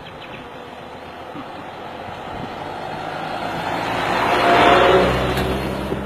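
Light goods truck driving past close by. Its engine and tyre noise grow steadily louder, peak about five seconds in, then begin to fade.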